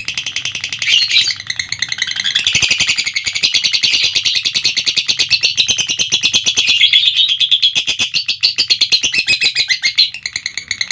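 Lovebird singing a long, unbroken 'ngekek' chatter: a fast train of sharp, high, scratchy notes, many a second, running on without a pause.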